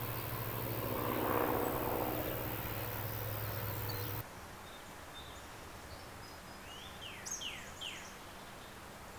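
Outdoor ambience: a steady low hum with a swell of rushing noise about a second in. About four seconds in it drops suddenly to a quieter background, and near the end a small bird chirps a few quick descending notes.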